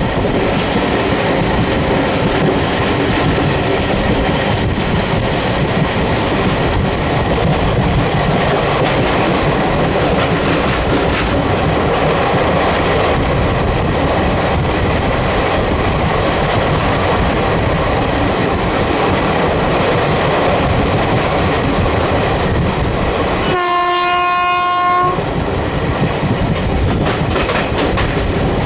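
Passenger train running at speed, a steady rumble with wheels clicking over rail joints. Near the end the WCAM electric locomotive sounds its horn once, a single steady-pitched blast lasting about a second and a half.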